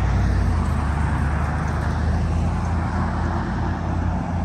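Steady road traffic noise: cars driving on the road, a constant low rumble with tyre hiss.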